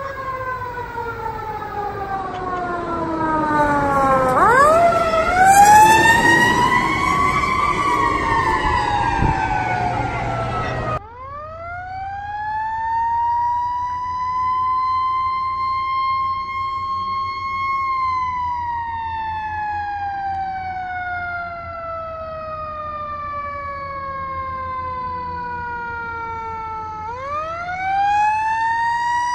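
Fire truck sirens wailing. At first several wails overlap and sweep down in pitch over the low rumble of the trucks. After an abrupt change about eleven seconds in, a single siren winds up slowly, holds its pitch, slides slowly down over several seconds, and winds up again near the end.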